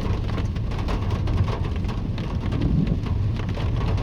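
Rain striking a car's roof and windscreen as many irregular sharp ticks, over the steady low rumble of the engine and tyres heard from inside the moving car.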